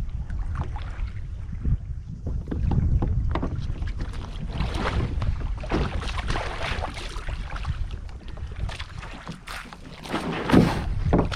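Kayak paddle strokes splashing and dripping in the water at an irregular pace, with wind buffeting the microphone.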